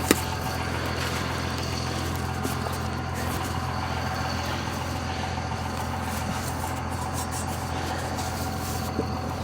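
An engine idling steadily, a low even hum, with one sharp knock right at the start.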